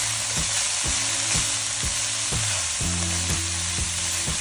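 Shredded carrots and green beans sizzling as they fry in coconut oil in a nonstick pan, stirred and turned with a spatula.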